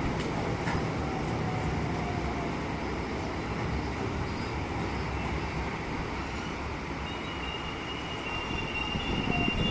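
Train running, a steady rumble and rush of noise, with a thin high whine coming in about seven seconds in.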